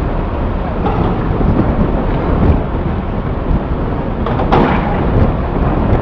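Steady heavy rumble of cargo-handling machinery as a crane works pipes on a flatbed trailer. A single sharp knock comes about four and a half seconds in.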